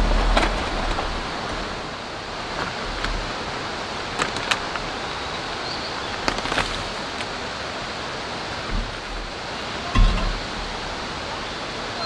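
Steady rain falling, with scattered light clicks and a couple of soft bumps as a foil food pouch is handled.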